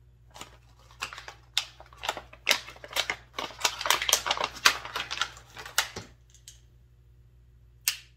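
Packaging of a small tool being handled and opened by hand: a dense run of sharp crackles and clicks for about six seconds, then one more click near the end.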